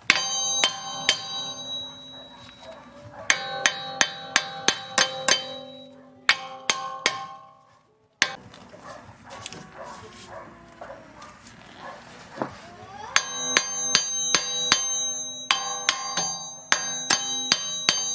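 Hammer blows on a seized wheel hub assembly, metal on metal, each strike ringing, as it is knocked to free it from the steering knuckle. The blows come in quick runs of several, with a few seconds' pause about midway, and then a long run near the end.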